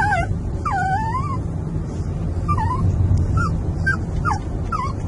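Small long-haired dog whining and whimpering in excitement, in about seven short high whines that rise and fall in pitch, as it recognises it is nearing a familiar home. Under it is the steady low rumble of the car's cabin on the road.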